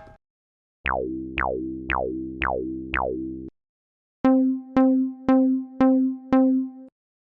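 Synthesized electronic tones: five pings that each drop quickly in pitch over a steady low drone, about two a second, then after a pause six sharp bell-like strikes at the same pace, like a railroad crossing's clanging bell.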